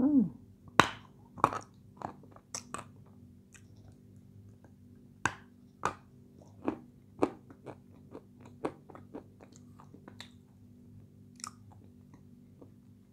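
Dry pale edible clay (light Turkestan clay) being bitten and chewed: a string of sharp, crisp crunches at irregular intervals, loudest in the first few seconds.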